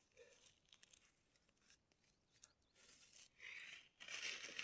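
Near silence, with faint rustling about three and a half seconds in and again near the end, as of a bag being handled while thyme is put into it.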